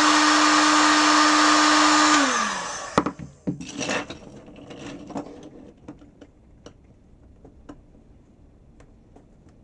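Hot-air heat gun running, a steady whine over rushing air, then switched off about two seconds in, its fan winding down in pitch. A knock follows as it is set down, then faint clicks of 3D-printed plastic segments being handled and fitted together.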